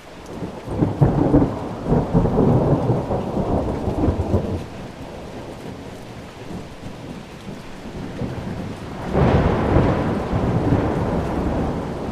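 Thunderstorm: rolling thunder over steady heavy rain, with one long rumble in the first few seconds and a second rumble starting near the end.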